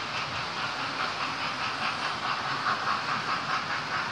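Model railway trains running on the layout's track: a steady rushing hiss from the running trains, with a fast, even pulse.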